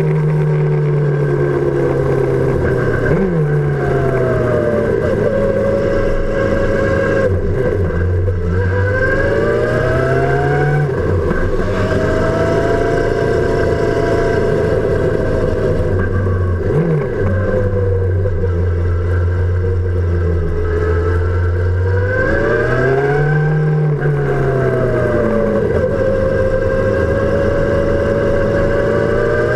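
Sport motorcycle engine running under way, heard from close beside the rear footpeg, its pitch rising and falling over and over as the throttle opens and closes, with a few sharp brief dips.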